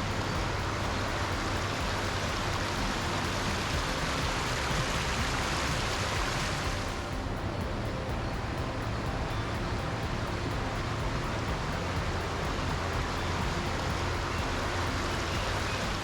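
Waterfall: rushing water making a steady, loud noise. About seven seconds in the brighter hiss drops away, leaving a duller rush.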